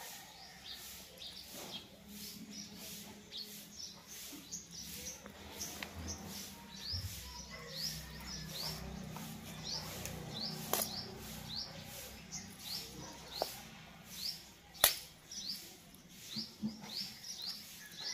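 A small bird chirping over and over: short, high, rising chirps about two a second. A few sharp clicks cut in, the loudest near the end.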